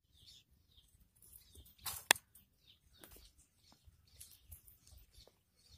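Quiet farmyard ambience: faint scattered chirps and light rustling, with one sharp click about two seconds in.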